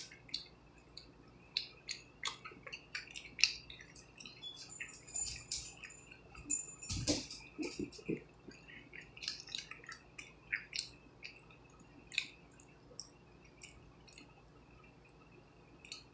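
A person chewing a tuna sandwich on soft white bread close to the microphone: irregular small mouth clicks and smacks, with a louder low thump about seven seconds in.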